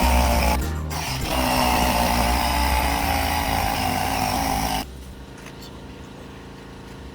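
Power sander running against a car body panel, sanding down primer-surfacer, with a steady wavering motor tone. It breaks off briefly about half a second in, then drops away almost five seconds in, leaving a quieter steady hum.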